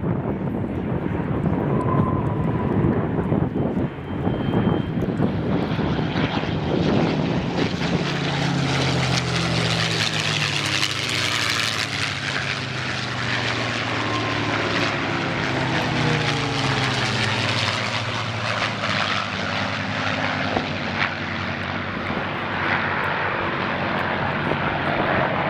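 Piston-engined WWII fighter flying past. The engine note swells to its loudest about eleven seconds in, then its pitch falls as it draws away.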